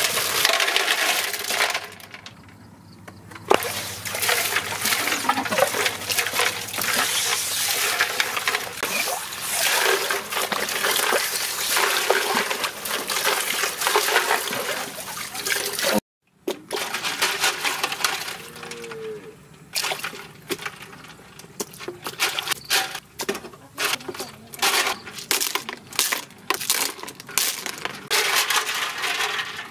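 Water pouring and splashing into a bucket of freshly caught cockles, running steadily until it cuts off sharply about halfway. After that, the cockle shells clink and clatter against each other in quick, uneven runs as they are handled in the bucket.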